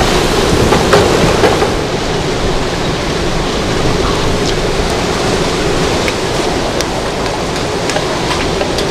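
Hurricane-force wind and rain making a loud, steady rush of noise, with a few sharp knocks in the first second and a half. About two seconds in, the rush turns steadier and a little duller.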